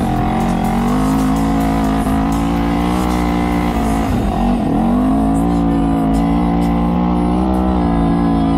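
Sport quad bike engine running at high, steady revs under way, with a short drop in revs about four seconds in before it picks back up.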